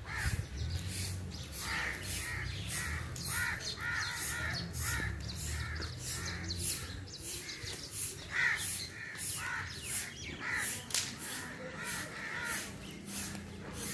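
Rufous treepie calling repeatedly, a run of short rising-and-falling notes, over a steady high-pitched pulsing of about two or three beats a second.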